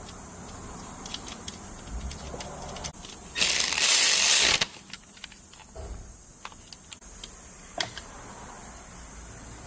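Scattered light metallic clicks and taps of hand-tool work under the hood, with a loud rushing hiss lasting about a second in the middle.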